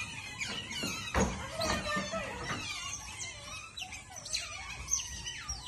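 A group of otters squeaking and chirping: many short, high-pitched calls overlapping, the clamour of otters begging for food. A thump about a second in.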